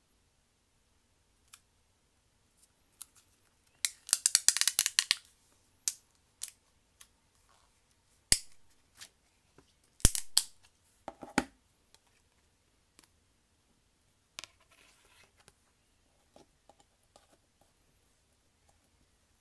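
Handling sounds in a small room: a quick rattle of sharp clicks about four seconds in, then single sharp clicks and taps, with a duller cluster near the middle and fainter ticks toward the end.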